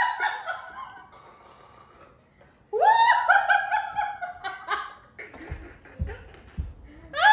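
Shrill, high-pitched laughter in loud bursts: one trailing off at the start, a new burst breaking out about three seconds in, and another near the end. Three dull thumps come in between.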